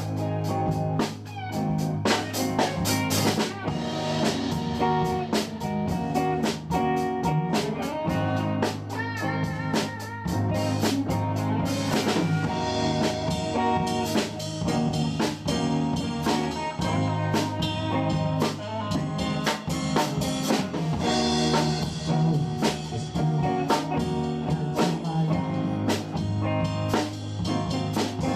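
Background music: a blues-style track with guitar and drum kit keeping a steady beat.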